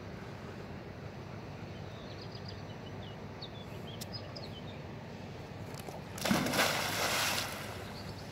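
A yellow Labrador jumps into a canal with a loud splash about six seconds in, followed by about a second of churning water as it starts to swim.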